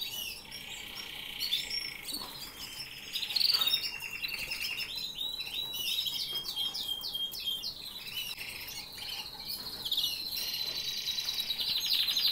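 Domestic canaries singing: fast, rolling trills and strings of repeated chirps, with a long high trill near the end.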